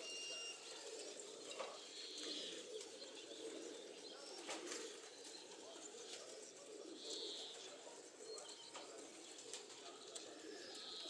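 Racing pigeons cooing faintly and steadily at the loft, with a few short high-pitched chirps.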